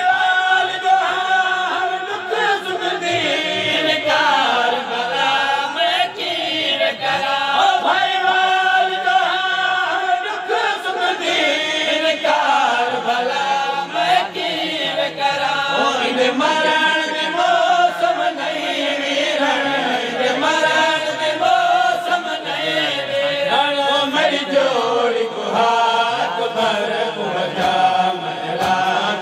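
Male voices chanting a noha, a Shia lament, in repeating melodic phrases, led by a reciter on a microphone with other men's voices joining in.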